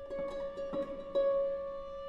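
Harp and viola playing contemporary chamber music: the viola holds one steady bowed note while a handful of plucked harp notes come in quick, uneven succession. The loudest harp note comes just past a second in.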